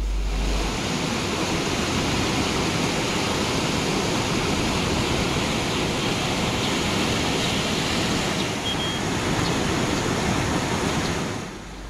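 Swollen, muddy floodwater of a river in spate rushing past: a steady noise of fast-flowing water that fades out near the end.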